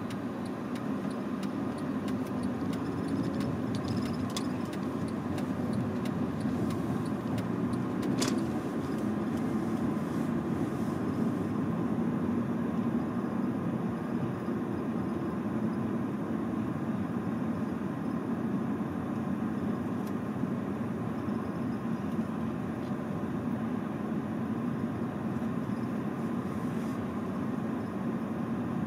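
Steady motor-vehicle noise, a car's engine and road sound running evenly, with a single sharp click about eight seconds in.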